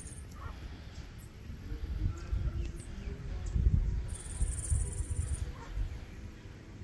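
Outdoor ambience: faint bird chirps and a brief high insect buzz about four seconds in, over a low, uneven rumble of wind on the microphone.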